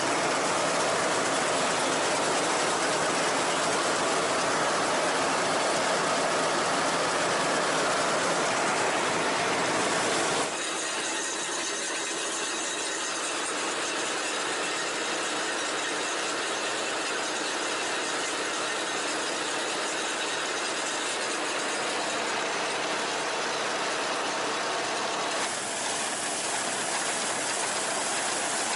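Niva SK-5 combine harvester running while harvesting wheat: its engine and threshing machinery make a steady mechanical noise. The sound drops a little and changes abruptly about ten seconds in, and changes again near the end.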